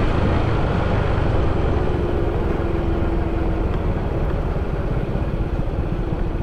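Motorcycle on the move: a steady, rough low rumble of the engine and riding noise.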